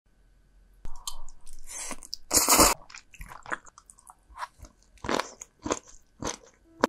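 A person biting and chewing crunchy food close to the microphone: a string of irregular wet crunches and chews, the loudest about two and a half seconds in.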